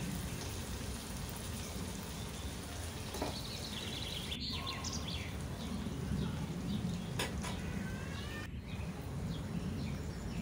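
Oil sizzling under fried onions and ground spices in a non-stick pan, with a few short bird chirps around the middle and again later.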